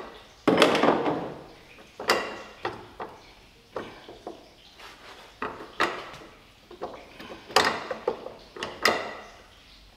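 Metal knocks and clunks as a chromed front strut brace is handled and set onto the car's strut-tower studs. One loud knock about half a second in, then several lighter knocks and clicks at irregular intervals.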